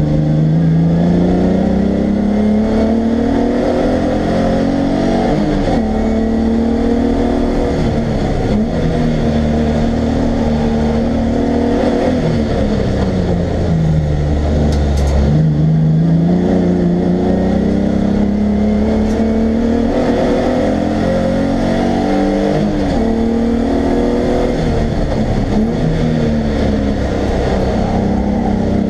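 Race car's engine heard from inside the cabin at racing pace. The revs climb under throttle, sag and dip low for a few seconds past the middle as the driver lifts off, then build again toward the end.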